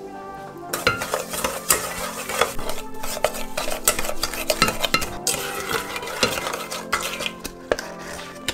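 Black spoon stirring an egg-yolk and sugar mixture in an enamel pot, scraping and clicking against the pot's sides and bottom in quick, uneven strokes that start about a second in and stop near the end.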